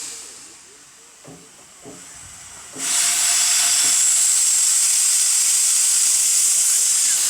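A few faint low knocks, then about three seconds in a loud steady hiss of air venting from a shunting railway locomotive starts suddenly and keeps going.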